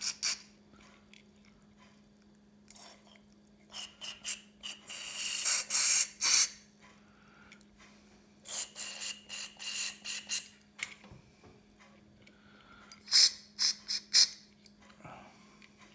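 Aerosol carburettor cleaner hissing as it is squirted through a thin straw into the jets of a Kawasaki GPZ500S carburettor, flushing them out. It comes in three clusters of short, sharp squirts.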